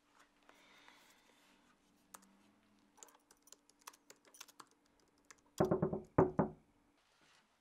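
Typing on a MacBook laptop keyboard: a scatter of soft, irregular key clicks. About six seconds in come two loud short bursts of sound, much louder than the typing.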